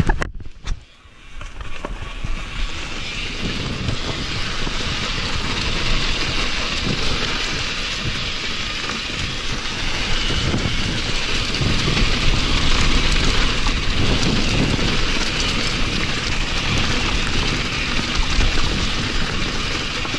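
Wind rushing over an action camera's microphone as a mountain bike rolls down a dirt trail, with tyre noise on the dirt and the bike knocking and rattling over bumps. It is much quieter for about the first second and a half, then rises and runs steady.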